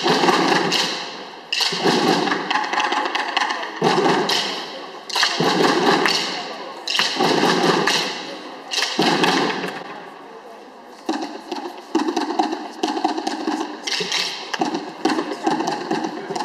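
A corps of about a dozen drummers strikes waist-slung drums together in loud phrases of rolls and hits, each lasting about a second, with short breaks between them. A steadier run of beats follows over the last few seconds, echoing in a large sports hall.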